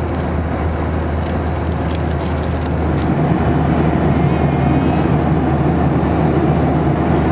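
Steady cabin noise of a jet airliner in cruise: a deep drone under a constant rush of air, growing louder about three seconds in.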